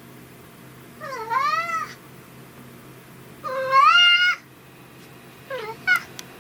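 A domestic cat meowing three times, the middle meow the longest and loudest, with a couple of short clicks near the end.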